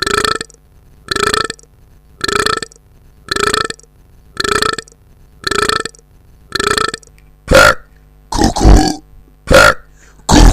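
A short guttural, burp-like vocal sound repeated identically about once a second, like a looped effect. From about seven seconds in come louder, irregular bursts of the same kind.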